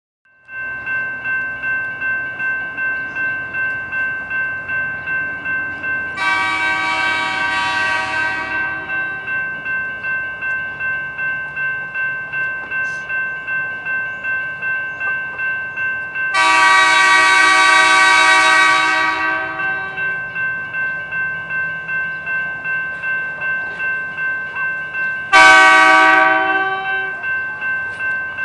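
Railroad grade crossing bell ringing about twice a second, while the backing train sounds three warning blasts: two long, then a short one.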